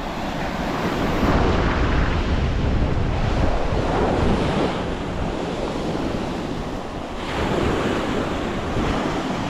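Strong wind buffeting the microphone, a rough, gusting rush with heavy low rumble that swells about a second in.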